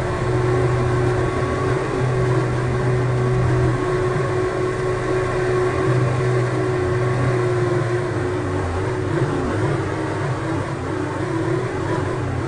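Electric fan running with a steady motor hum and whir.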